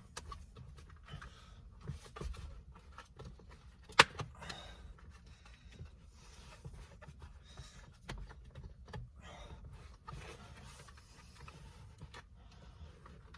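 Light clicks, taps and rustling from steering-wheel parts and tools being handled during disassembly, with one sharp click about four seconds in.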